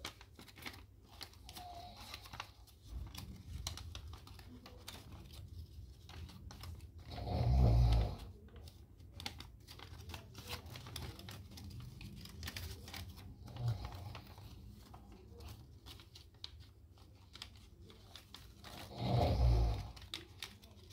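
Origami paper being folded and creased by hand: soft rustling and crackling with scattered light taps. Twice, about eight seconds in and near the end, a louder low muffled whoosh lasts about a second.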